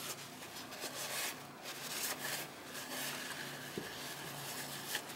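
Faint rubbing and handling of small metal parts as hands work at the bore of a disassembled Bendix hydroboost, fitting its small tabbed spring, with two light clicks in the second half over a faint low hum.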